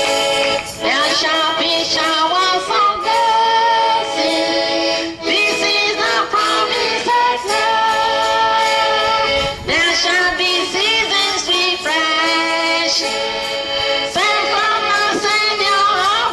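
Accordion music with a voice singing over it.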